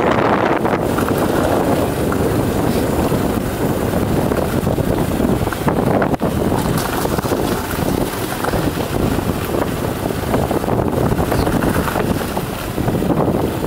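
Wind buffeting the microphone on a moving two-wheeler: a dense, steady, low rush of air and riding noise.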